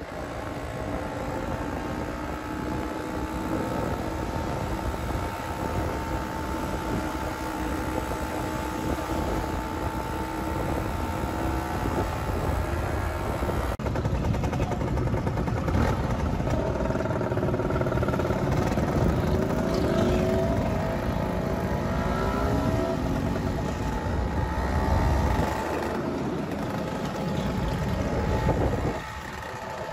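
Engines of a procession of motor scooters and motorcycles riding past, their engine notes rising and falling as riders pass and rev.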